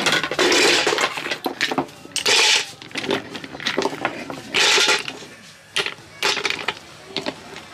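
Sea snail shells, spider conchs among them, clattering against each other and a stainless steel pot as they are loaded in for steaming: three louder rattling bursts, then lighter scattered clicks.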